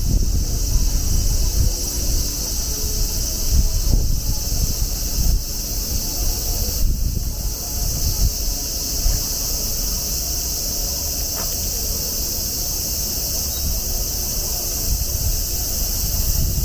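Cicadas shrilling steadily as a continuous high buzz, over a low rumble that rises and falls underneath.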